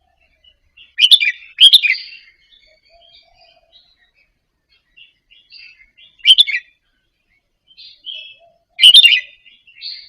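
Red-whiskered bulbul singing: four short, loud phrases, two close together about a second in, one past the middle and one near the end, with soft twittering notes between them.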